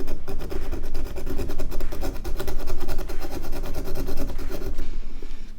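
Knife blade rasping rapidly back and forth against a snapped screw in a Nokia phone's housing, in a fast, even run of scraping strokes that fades near the end.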